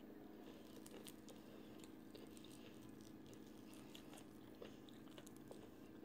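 Faint chewing and small crunches of breaded fried chicken, with scattered soft clicks as the pieces are pulled apart by hand, over a steady low hum.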